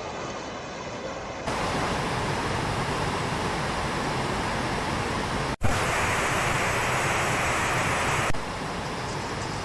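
Steady rushing water noise, in segments that change abruptly about a second and a half in and near the end, with a brief dropout past the halfway mark.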